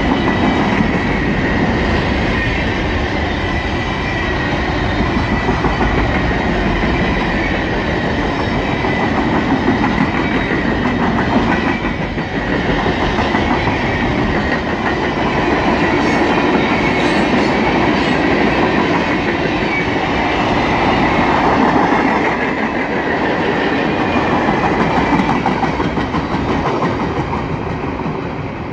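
Long freight train rolling past at close range: a steady rumble and clickety-clack of car wheels over the rail joints, with a faint steady high whine from the wheels. It fades slightly near the end as the train moves away.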